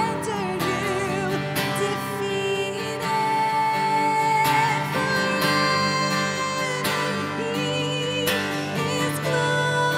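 Acoustic worship music: an acoustic guitar strummed steadily under a woman's singing, her held notes wavering with vibrato.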